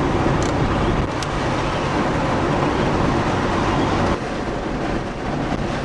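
Steady rumble and hiss of a car's engine, tyres and wind heard from inside the moving car, with a couple of light ticks in the first second or so; the noise drops somewhat about four seconds in.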